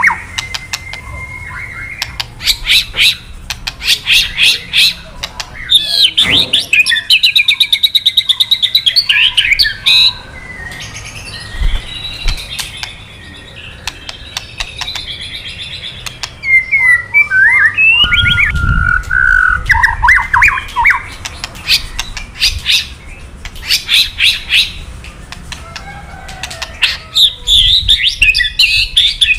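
White-rumped shama (murai batu) giving its kretekan call: bursts of rapid, dry clicking rattles alternating with whistled and warbling phrases, with short pauses between bouts. It is a harsh, agitated rattle used to rouse male shamas into answering.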